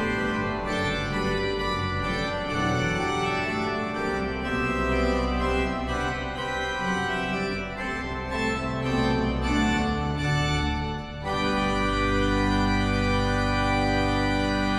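Church pipe organ playing the opening music of the service: moving chords over a deep bass, then a full chord held steady for the last few seconds.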